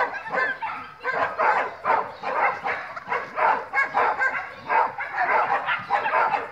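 A dog barking in a quick unbroken string, about three barks a second, as it runs an agility course.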